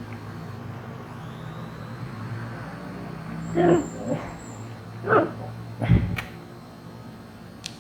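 Four short pitched calls, like an animal's, in quick succession over a steady electrical hum, followed by a sharp click.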